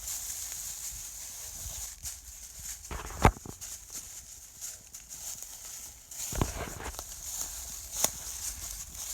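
Footsteps and rustling through forest undergrowth while following a tracking dog, with irregular knocks, the loudest a sharp crack about three seconds in, over a steady high hiss.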